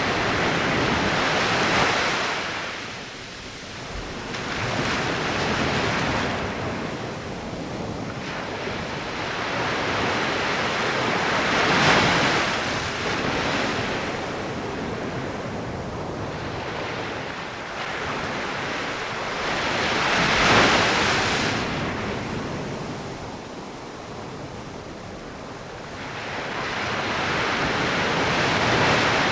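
Light ocean waves washing onto the shore, rising and falling in slow surges every several seconds.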